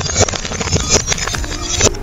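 Glass light bulbs crunching and shattering under a rolling car tyre: a dense crackle of breaking glass with many sharp snaps, which stops abruptly near the end. Music plays underneath.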